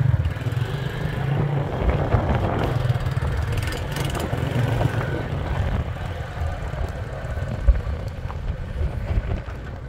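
Motorbike running while being ridden, a steady low rumble.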